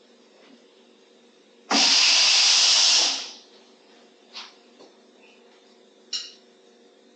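A loud burst of compressed air from an air hose, hissing steadily for about a second and a half before tailing off, followed by a few light clicks.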